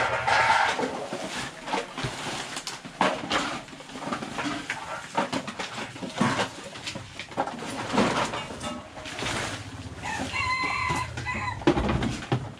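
Plastic sacks and bundled junk rustling and knocking as clothes and rubbish are crammed into a large plastic bag by hand. A brief high-pitched call is heard about ten seconds in.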